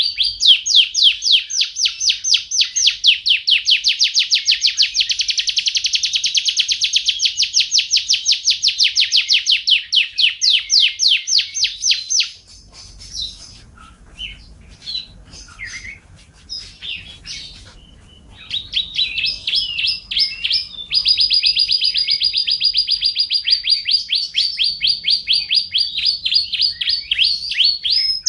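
White-rumped shama singing a long, rapid trill of repeated down-slurred high notes, breaking off about twelve seconds in into a few scattered, varied notes and then picking up the fast repeated trill again.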